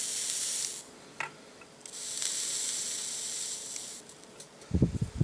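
Coil of a Vapinaze AC9 rebuildable atomizer fired to oxidise its mesh wick, hissing and sizzling in two spells: the first stops about a second in, the second lasts about two seconds in the middle. A few low thumps of handling near the end.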